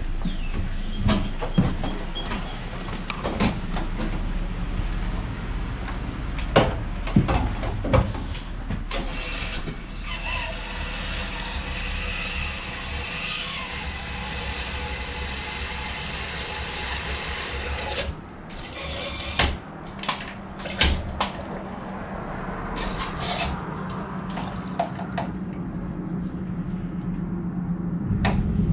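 Gasoline running from a fuel nozzle into a stand-on mower's fuel tank, a steady rushing that stops for a few seconds midway, with sharp clicks of the nozzle and filler, then runs again. A steady low hum lies under it throughout.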